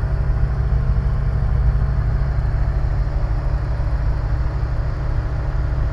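Nanchang CJ-6 trainer's radial piston engine droning steadily in flight, heard from inside the cockpit.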